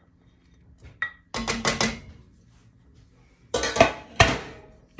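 A spoon scraping and rattling chopped bacon out of a glass bowl into a saucepan of cream sauce, followed by two sharp clinks of kitchenware near the end.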